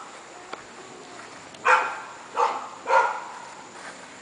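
A dog barking three times, the barks about half a second apart.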